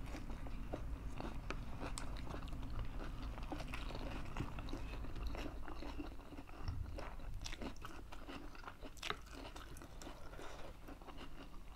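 People biting into and chewing lettuce wraps filled with noodles. A continuous run of small crisp crunches and wet mouth clicks.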